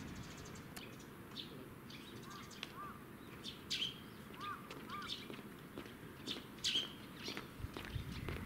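Small birds calling: scattered short chirps, some as pairs of quick arched notes, over a low steady background.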